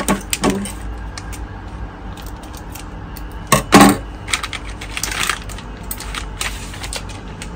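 Speargun parts being handled: scattered clicks and metallic clinks, with two louder knocks a little past halfway.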